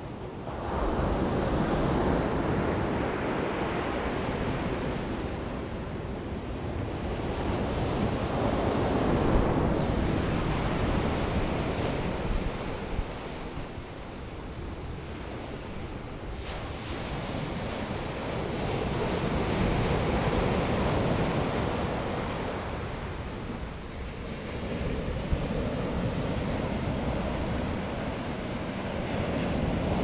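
Sea surf breaking and washing up a sand-and-pebble beach, the wash swelling and easing in slow surges every several seconds.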